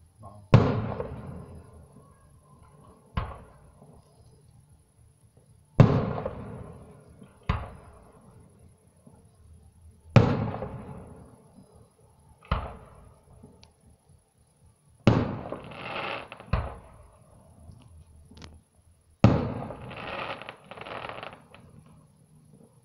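Aerial fireworks display: shells bursting with sharp bangs every two to three seconds, each followed by an echo that dies away. Two of the later bursts trail on for a second or more.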